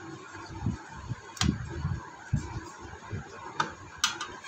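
Scattered soft knocks and sharp plastic clicks as the plastic back cover of a Casio solar calculator is pried off and set down on the bench. The sharpest clicks come about a second and a half in and again near the end.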